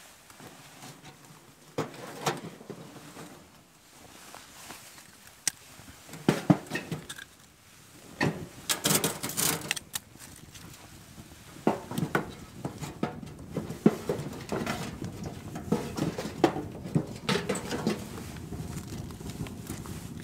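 A small metal wood stove being loaded with firewood and lit. Irregular clinks, knocks and rustling come from handling the wood and the stove's metal parts, getting busier about eight seconds in.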